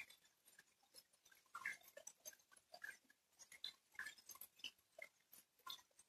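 Faint, irregular ticking of individual raindrops, several drops a second.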